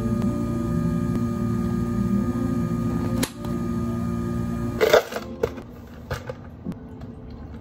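Steady electrical hum of café equipment for about three seconds. About five seconds in come a few sharp clicks and clatters from a plastic cup of iced drink being handled; the first clicks are the loudest sound here.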